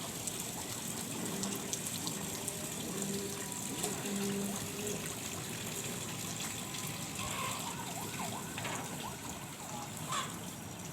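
Steady running water, an even rushing and trickling, with a few faint short tones over it.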